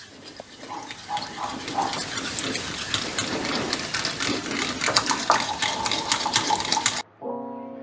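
Egg and buttermilk being beaten with a whisk in a glass bowl: a steady wet sloshing, with many small clicks of the whisk against the bowl. It cuts off suddenly about seven seconds in, and music begins.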